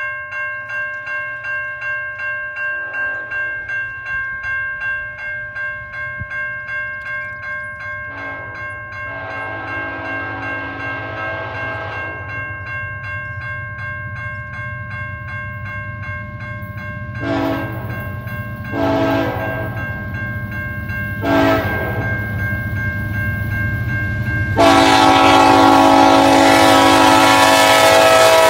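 Railroad crossing bell ringing about twice a second as a CN diesel freight train approaches. Under it a low locomotive rumble builds, and the locomotive horn sounds one long blast, three short ones, then a loud long blast as the lead locomotive, an EMD SD70M-2, reaches the crossing.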